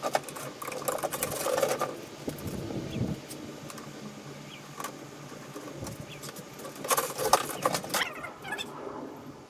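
Wires and small parts being handled during boat wiring work: irregular rustling, clicks and light clatter. The clatter comes in clusters in the first two seconds and again about seven seconds in.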